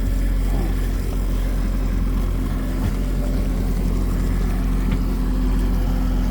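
Fishing boat's engine running steadily at trolling speed, a low, even drone.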